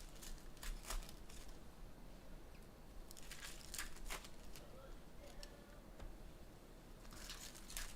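Faint crinkling and tearing of foil trading-card pack wrappers, with a few scattered light clicks.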